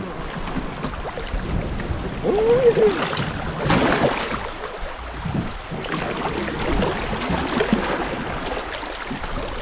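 River water splashing and lapping, with scattered knocks and a louder splash about four seconds in, and a brief vocal hum about two and a half seconds in.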